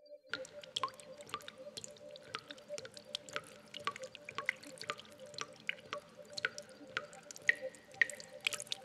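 Liquid dripping into liquid: quick, irregular plinking drops, several a second, starting suddenly just after the start, over a faint steady hum.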